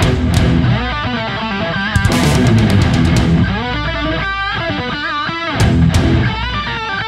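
Background music: a guitar-led rock track, with a lead melody whose notes bend in pitch over a steady band and sharp strikes.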